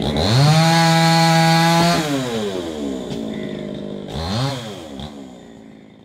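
Two-stroke chainsaw revving: the engine climbs to high speed at once, holds steady for about two seconds and drops back, then gives a second short rev about four seconds in. The sound fades out near the end.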